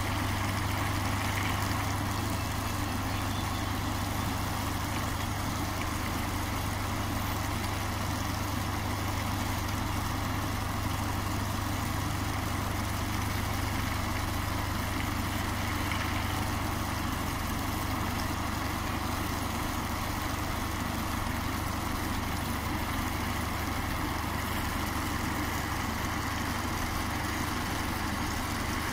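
Diesel engine of a shunting locomotive idling, a steady low hum that does not change.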